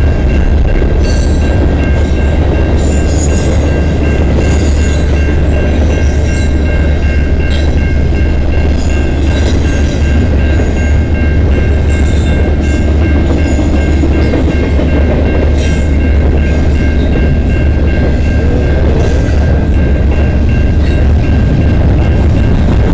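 Double-stack intermodal freight train rolling past at a level crossing: a loud continuous rumble of wheels on rail with scattered clicks and clatter, and a steady high tone holding underneath.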